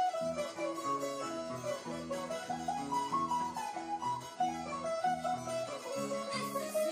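Instrumental passage on a large wooden harp and a guitar: a quick plucked melody over a steady line of plucked bass notes.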